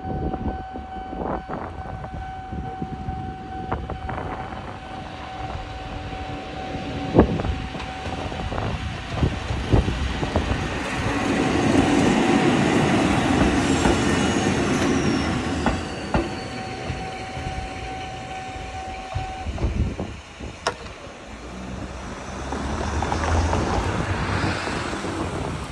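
Eizan Railway 'Hiei' electric train running past level crossings. A crossing warning bell rings steadily until about 19 seconds in, with the wheels knocking over rail joints. The train's rumble swells as it passes close about 12 seconds in and again near the end.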